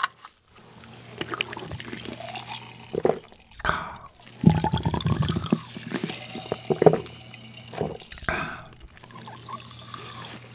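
A person drinking cola from a Pepsi can in repeated gulps and swallows, the liquid sloshing in the can. The gulps are heaviest about four and a half seconds in.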